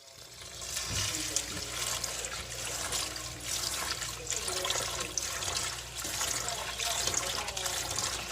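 Water running and splashing: a steady rushing hiss with many small irregular splashes, starting abruptly.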